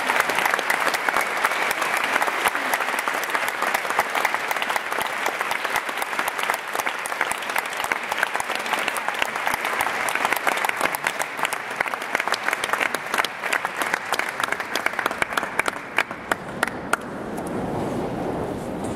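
Audience applauding a choir in a large concert hall: dense clapping that thins out and stops about seventeen seconds in, giving way to crowd murmur.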